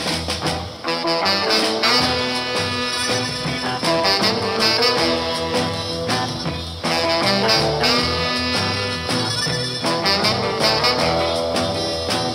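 Instrumental soul music playing from an EP, with horns carrying the tune over a rhythm section; it gets louder about seven seconds in.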